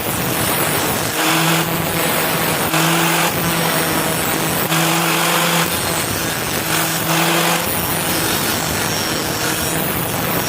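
An electric grinding or sanding tool working on steel: a loud, steady gritty noise, with four passes of heavier contact where a steady hum and a brighter rasp come in and then drop away.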